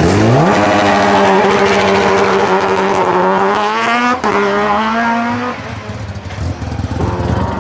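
Race-prepared VW Polo G40 1.4 hillclimb car launching from the start line: the engine revs shoot up, hold high as the car pulls away, then drop sharply on an upshift about four seconds in and climb again. The sound then fades as the car moves off up the course.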